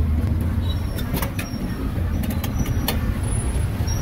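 Steady low rumble of street traffic, with several sharp clinks of metal wire roasting racks being handled in a plastic tub about a second in and again between two and three seconds in.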